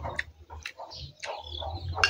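Domestic chickens clucking, with a few light clicks of a metal spoon against a ceramic bowl and plate.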